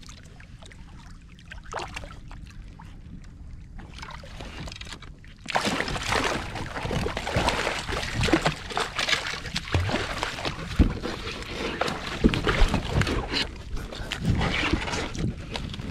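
Water splashing and knocking against a kayak as a hooked smoothhound shark thrashes at the surface alongside, getting much louder about five and a half seconds in, with many sharp knocks.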